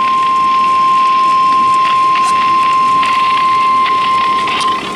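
NOAA Weather Radio warning alarm tone: one steady, single-pitched beep held without a break, over a background hiss. It marks the start of a winter storm warning broadcast.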